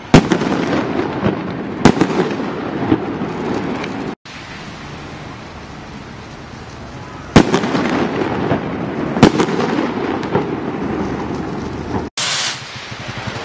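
Myth And Mayhem aerial firework shots bursting overhead: four loud bangs in two pairs, each followed by a spread of crackling. Near the end a short whooshing hiss marks the next shot leaving the tube.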